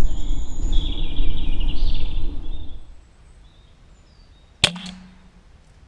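A single sharp shot from a silenced air rifle a little past the middle, with a brief low ring after it. Before it, a loud low rumble with a higher hiss over it cuts off about three seconds in.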